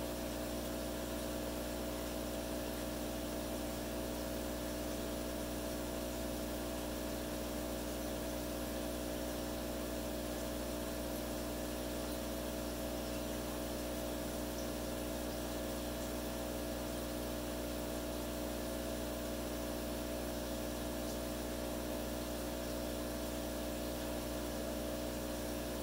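Aquarium pump humming steadily, a constant electric drone with an even hiss behind it.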